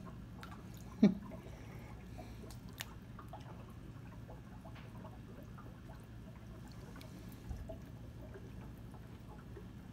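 Aquarium water trickling and dripping over a steady low hum, with scattered small splashes and clicks as the fish take food at the surface. A short loud burst comes about a second in.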